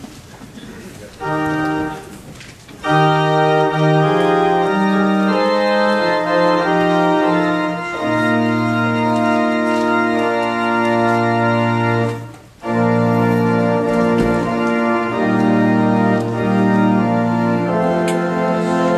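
Church organ playing slow held chords: one short chord about a second in, then sustained chords from about three seconds, with a brief break in the middle.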